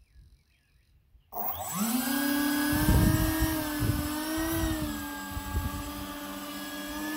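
Four 50 mm electric ducted fans of an RC Airbus A380 model spool up suddenly about a second in, their whine rising in pitch and then holding steady as the model taxis, with a few low thumps. One fan is broken.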